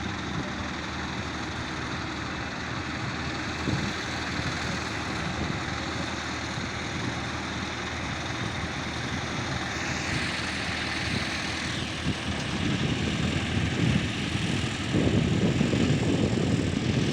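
Diesel engine of a hydra mobile crane running steadily, with a brief hiss about ten seconds in and the engine getting louder near the end.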